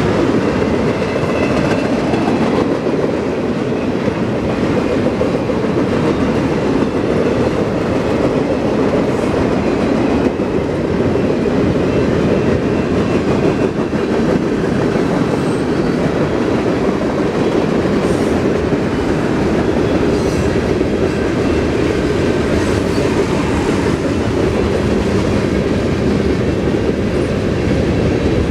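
Freight train cars rolling past at steady speed: a continuous rumble of steel wheels on rail with clickety-clack over the joints, and a faint high wheel squeal in the first few seconds.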